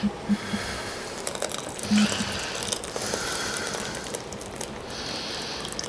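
A frying pan being scraped out into a glass bowl of gravy: irregular rasping scrapes and small clicks.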